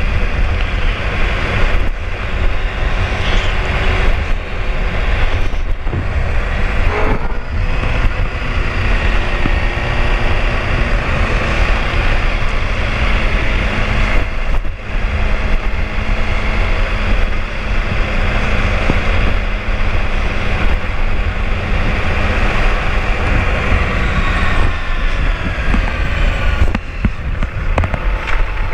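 Sport motorcycle riding along a street: steady engine drone under heavy wind buffeting on the microphone.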